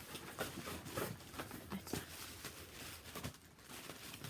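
Wrapping paper rustling and crinkling as a gift-wrapped package is handled and unwrapped, in short irregular crackles.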